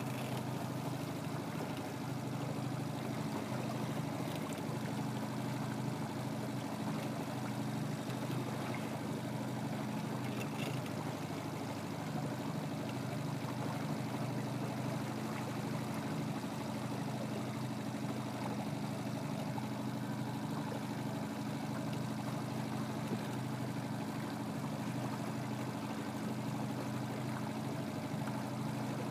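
Small boat motor running steadily with a low, even hum, over a light wash of water noise around the boat.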